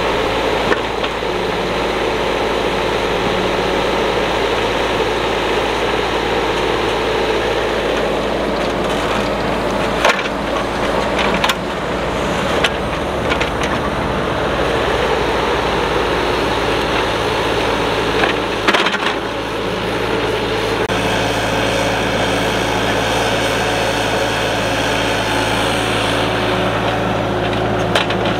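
Kubota mini excavator's diesel engine running steadily under digging load, with a few sharp knocks and cracks from the bucket working the soil, clustered about a third of the way in and again about two-thirds through.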